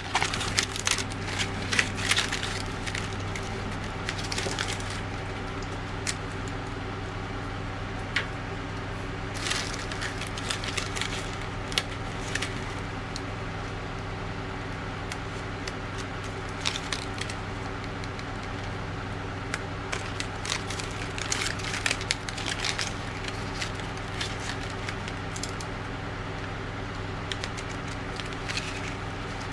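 Irregular crackling and rustling, like material being handled or worked, over a steady low hum.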